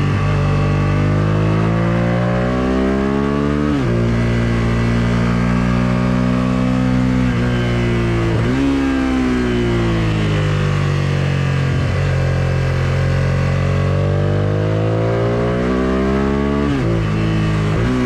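Suzuki SV650S's 645 cc V-twin with an Akrapovic full exhaust, heard from the rider's seat under riding load. Its note climbs and falls with the throttle through the bends, and the pitch drops sharply three times.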